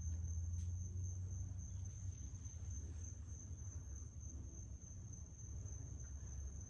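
Crickets trilling steadily in one continuous high-pitched tone, over a low rumble that is strongest in the first couple of seconds.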